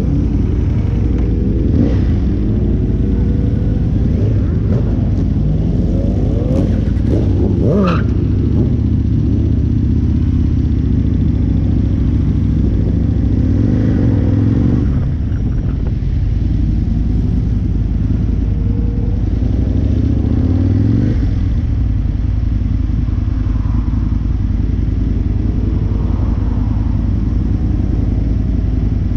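Aprilia sport motorcycle's engine heard from the rider's position, its pitch rising again and again as it accelerates away through the gears over the first several seconds, then running more steadily with a few more rises. A steady rush of wind and road noise runs underneath.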